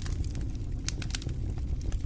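Wood fire burning in a stone fireplace: a steady low rumble of the flames with frequent sharp crackles and pops, several a second.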